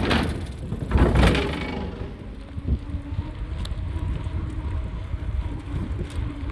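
Wind rumbling on the microphone and tyre noise while riding a bicycle along a trail, with a louder gust about a second in, then a steady low rumble.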